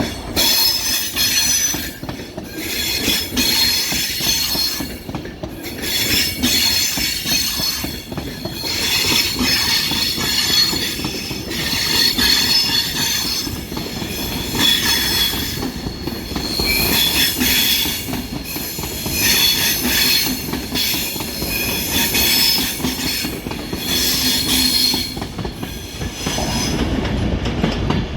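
A train running on rails, its wheels squealing in repeated high-pitched bursts every two to three seconds over a steady low rumble.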